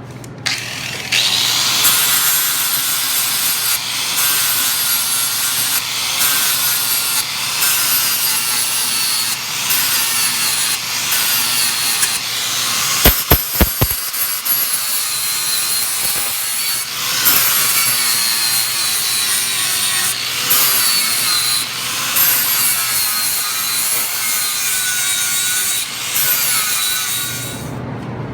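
Grinder grinding a mower's steel frame down to bare metal: a harsh scraping hiss with a whine through it, dipping briefly every couple of seconds. A quick run of sharp clicks comes about halfway through, and the grinding stops near the end.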